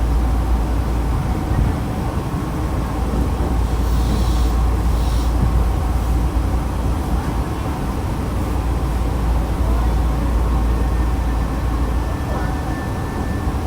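Onboard running sound of the Nankai 2036F electric train between stations: a steady low rumble of wheels on rail, with a brief hiss about four seconds in and a faint thin whine near the end.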